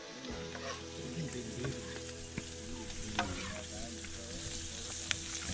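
Beaten eggs sizzling in a skillet while a spatula stirs them around the pan. There is a steady frying hiss with a few sharp clicks.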